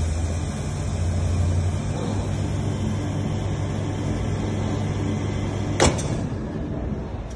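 Chamber vacuum packaging machine running its vacuum pump with a steady low hum, drawing the air out of the chamber and the glass jar inside it. About six seconds in there is a sharp double click.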